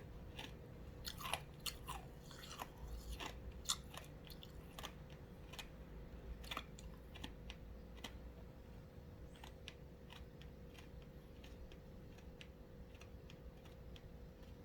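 Ice being crunched and chewed in the mouth close to the microphone: a quick run of sharp, crisp cracks that grows sparser in the second half as the pieces are ground down.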